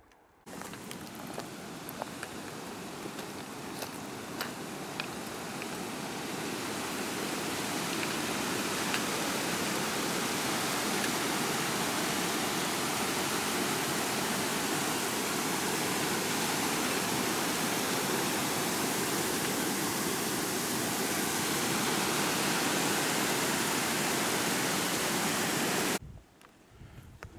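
Small mountain creek tumbling down a rocky slope: a steady rush of water that builds over the first several seconds, then cuts off suddenly near the end.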